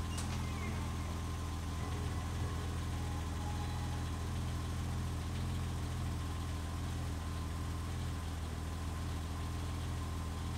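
BMW E30 325i's 2.5-litre straight-six engine idling steadily.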